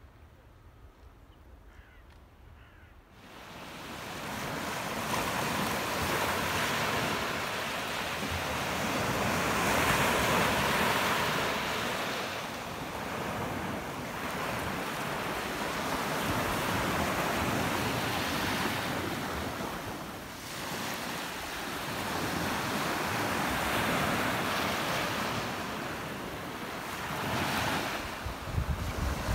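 Small waves breaking and washing up a sandy beach. The noise comes in about three seconds in and swells and eases every few seconds.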